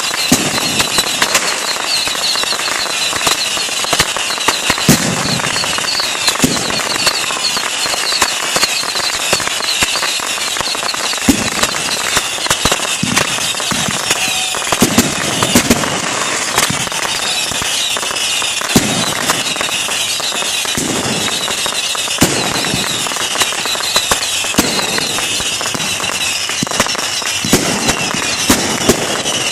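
Fireworks going off: a dense, unbroken crackle packed with frequent sharp bangs.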